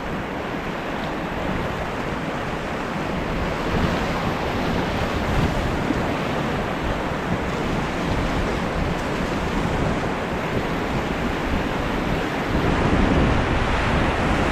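Steady rush of river water with wind buffeting the microphone, an even noise that holds without a break.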